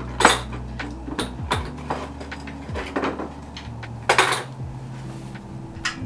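Light metal clinks and knocks from tools and parts being handled at a bike workbench, the loudest just after the start and another about four seconds in, over background music with deep bass notes.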